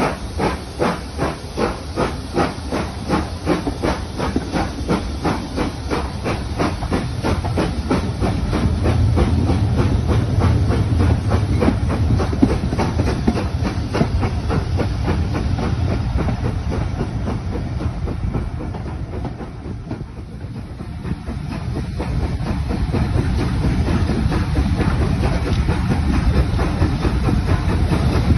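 Steam locomotives at a station: a run of rhythmic steam beats, about two or three a second, fades over the first several seconds into a steady hiss of escaping steam over a low rumble, which dips briefly and swells again near the end.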